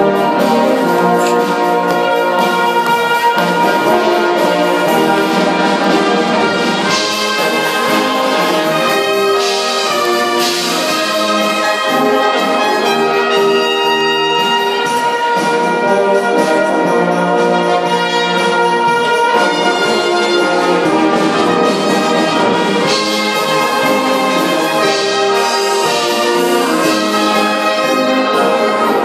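Brass band of trumpets, trombones and tubas playing together, holding full sustained chords that change every second or so at a steady, loud level.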